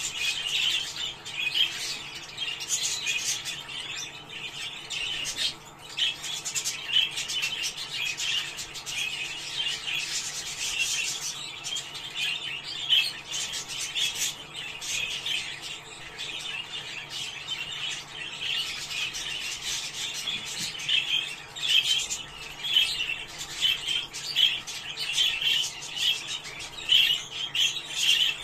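A flock of budgerigars chattering and warbling continuously, a dense stream of chirps and squawks. This is the kind of flock chatter used as a budgie breeding-stimulation sound.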